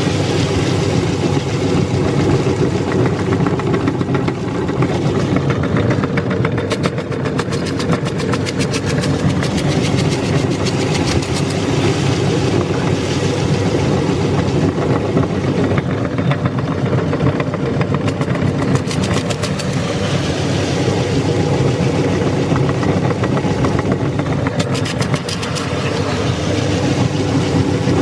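Electric meat grinder running steadily with its motor humming while it grinds long candy, with a crackly, crunching texture over the motor.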